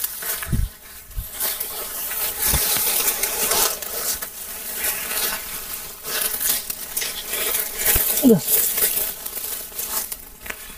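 Forest insects buzzing, with rustling and a few low thumps. A brief falling tone comes about eight seconds in.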